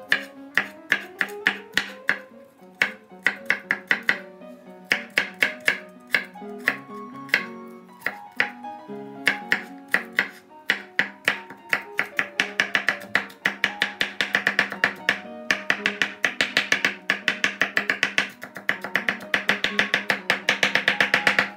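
Chef's knife chopping garlic cloves on a bamboo cutting board: sharp knife strikes in short runs at first, then a fast, steady run in the second half. Background music plays underneath.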